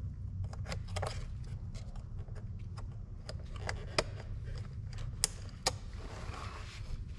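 Small sharp plastic clicks and taps from gloved fingers working the map-light housings of a truck's plastic overhead console, trying to push the lights out from behind, over a steady low hum. The sharpest clicks come about four and five seconds in.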